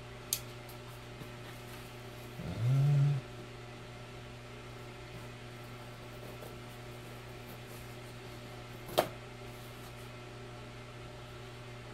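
A parcel being opened with a knife: a faint click just after the start and a sharp click about nine seconds in, over a steady low hum. A short hummed voice sound comes about two and a half seconds in.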